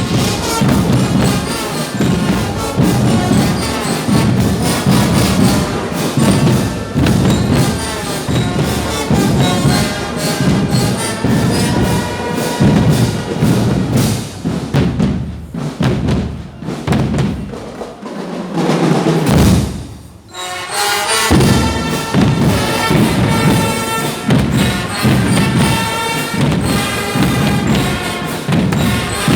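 Band music with a steady drum beat and brass, briefly dropping away about twenty seconds in before starting up again.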